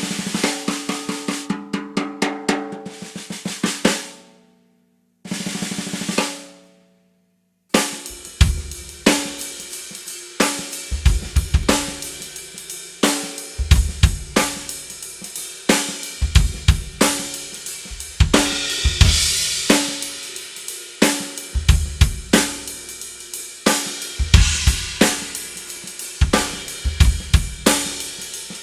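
Gas Custom 14x5 aluminium straight-wall snare drum with Ambassador heads, played unmuffled: a run of fast strokes for about four seconds, then a single hit left ringing. From about eight seconds in, it is played in a beat on a full kit, with bass drum and hi-hat and cymbals.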